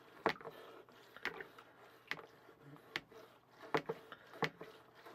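Plunger of a Hershey's chocolate milk hand-mixer pitcher pumped up and down through milk and chocolate syrup, each stroke giving a short plastic knock, a little faster than once a second.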